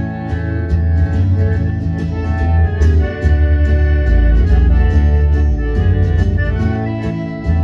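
Piano accordion playing a country tune, with sustained reedy chords and bass notes, backed by acoustic guitar.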